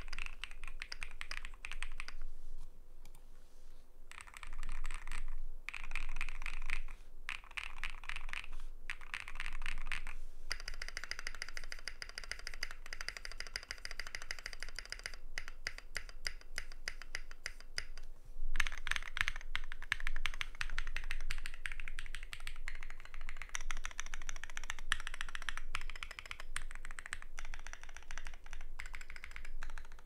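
Neo65 mechanical keyboard with lubed BSUN Raw linear switches, a POM plate and XDA PBT keycaps being typed on, at first in short bursts. Then single keys such as the spacebar and backspace are pressed over and over in dense, steady runs of clacks.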